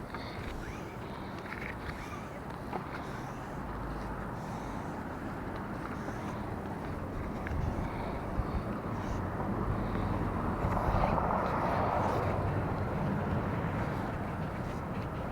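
Outdoor traffic noise with a steady low rumble, as a vehicle passes, loudest about eleven seconds in.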